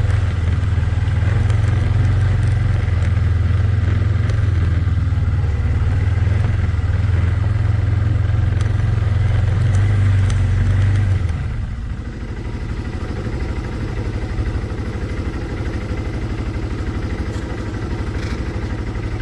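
Yamaha ATV engine running steadily under throttle. About eleven seconds in, the throttle is let off and the engine drops back to an idle.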